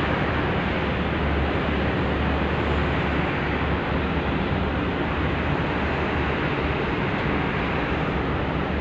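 Steady rushing noise of wind on the microphone, with a low rumble underneath.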